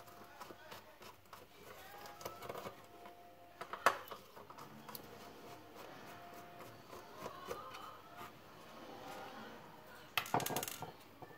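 Small clicks and scraping of a screwdriver undoing the last Torx screws in a plastic cordless-vacuum housing, with a sharper click about four seconds in and a louder clatter near the end.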